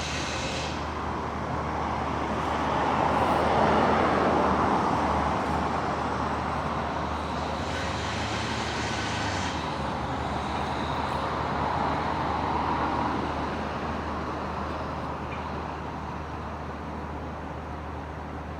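Road traffic: vehicles passing, the noise swelling and fading twice, over a steady low engine hum.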